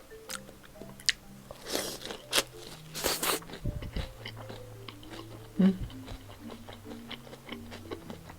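Close-miked eating of raw seafood: bites and chewing with wet crunches and mouth clicks, with louder bursts about two and three seconds in and a sharp click a little past halfway.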